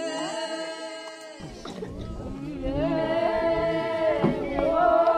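A group of villagers singing unaccompanied in long held notes. About a second and a half in the singing changes abruptly to a fuller take with deeper voices.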